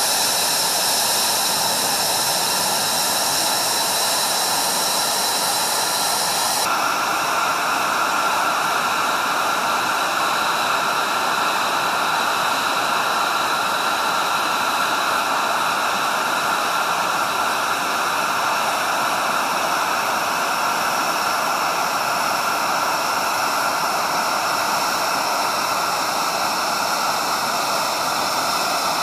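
Lockheed Martin F-22 Raptor's twin Pratt & Whitney F119 turbofans in flight: a loud, steady jet rush with high whining tones. The sound shifts suddenly about seven seconds in, then runs on steadily.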